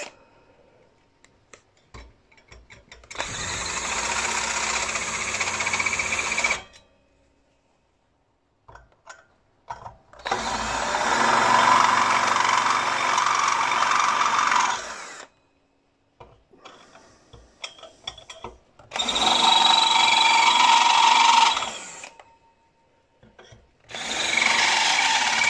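Cordless drill running a long bit through the holes in the spectacle plates onto the model traction engine's copper boiler, spotting the hole positions. It starts and stops four times, in runs of two to five seconds, with light clicks and knocks between the runs as the bit is moved from hole to hole.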